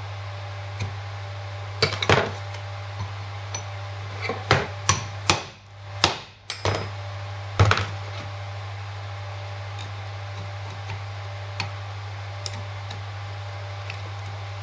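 Irregular metal clicks and knocks as circlip pliers and the half shaft's universal joint are handled on a workbench, with the loudest knocks about two and eight seconds in and only a few light clicks later. A steady low hum runs underneath.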